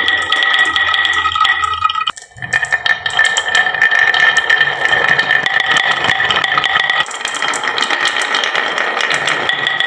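Many marbles clattering and rolling down a wooden marble run: a dense stream of rapid clicks over a steady high ringing tone, with a short break about two seconds in.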